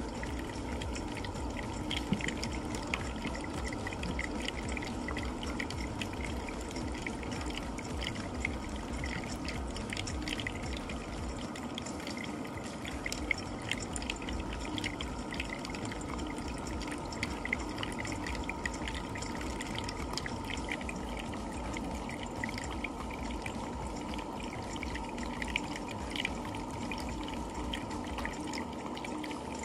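Two cats eating wet tuna, potato and kibble from bowls up close: a steady, irregular run of wet smacking, licking and chewing clicks, over a faint steady hum.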